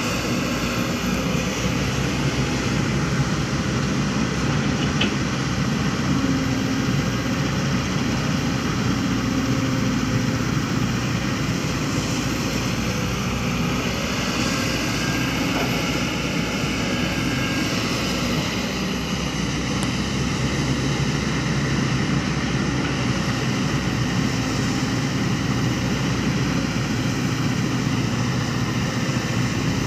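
Diesel engines of heavy construction machinery running with a steady drone, the pitch shifting slightly now and then.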